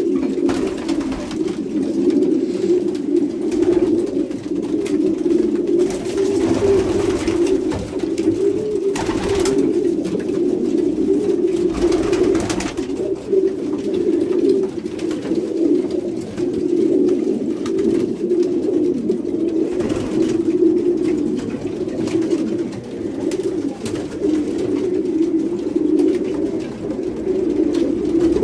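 Many domestic racing pigeons cooing together in an overlapping, unbroken chorus, the courtship cooing of a loft in the pairing season.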